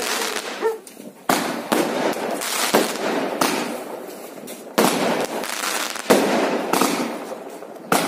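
Aerial fireworks going off: a run of sharp bangs roughly a second apart, each followed by a crackling hiss as the shells launch and burst.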